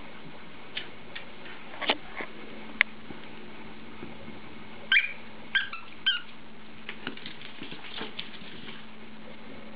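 Terriers chasing a small ball on a tile floor: sharp clicks and taps of the ball bouncing and of claws on the tiles, with three short high squeaks about five to six seconds in and a run of light, quick claw taps later.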